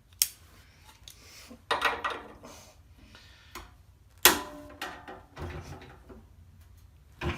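Grip-On 131 locking pliers being handled: a sharp metallic click near the start, a short rattle about two seconds in, and a louder click a little past four seconds, as the jaws are set and locked onto a workpiece.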